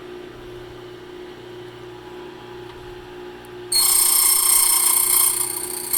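HPC Blitz key-cutting machine's motor running with a steady hum, then, a little over halfway through, its cutter biting into a brass key blank with a sudden loud, high-pitched ringing grind that eases briefly and starts again near the end.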